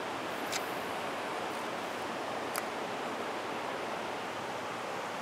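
Steady rush of a mountain stream's flowing water, with a couple of faint sharp ticks about half a second and two and a half seconds in.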